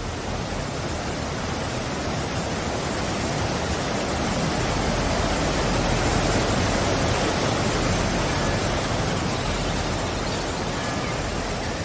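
Waterfall sound effect: a steady rush of falling water, swelling a little toward the middle and easing near the end.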